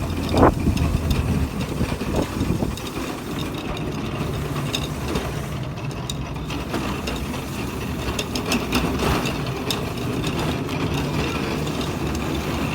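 A delivery truck's engine idling steadily, with scattered light clicks and rattles over it.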